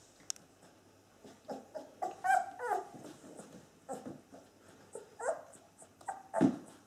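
Nearly three-week-old Bernese mountain dog puppies whining and squeaking as they tussle: a handful of short cries sliding up and down in pitch, the loudest about two seconds in and near the end.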